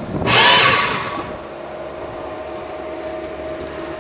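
Angle-grinder motor of a homemade electric outboard whining in a loud burst, its pitch sagging a little. It then runs on more quietly with a steady hum.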